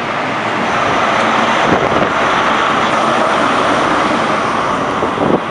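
HST power car with its MTU diesel engine working hard as the train departs, a loud steady engine drone with a high whine above it. It swells a second in and is crossed by a few wheel knocks over rail joints, the sharpest near the end.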